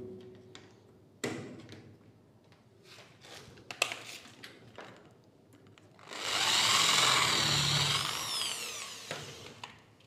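Corded electric drill running for about three and a half seconds in the second half, boring a screw hole at a stainless-steel latch plate into the PVC door edge, its whine rising and dipping in pitch. Before it come a few light clicks and taps as the metal plate is handled into place.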